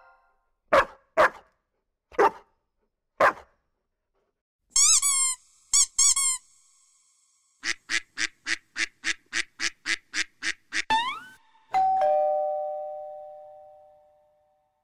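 A run of separate sound effects: four short dog barks about a second apart, then warbling high chirps and a quick run of about a dozen squeaks at roughly four a second. Near the end a two-tone 'ding-dong' doorbell chime sounds, high then lower, fading away over about two seconds.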